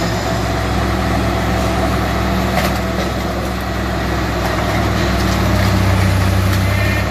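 Diesel engine of a wheeled scrap-handling machine with a grapple, running steadily as its hydraulics swing the boom, swelling louder about five seconds in. A couple of brief light knocks sound over it.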